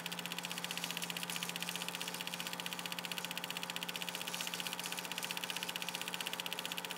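Film projector running: a fast, even clatter of the film advancing over a steady motor hum.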